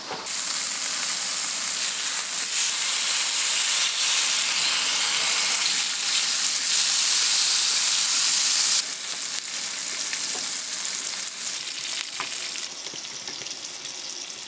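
Food sizzling in a hot frying pan: a dense hiss that starts suddenly, then settles to a quieter sizzle about nine seconds in.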